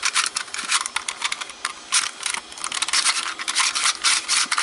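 Packaging being handled: a quick, uneven run of scratchy rustles and scrapes.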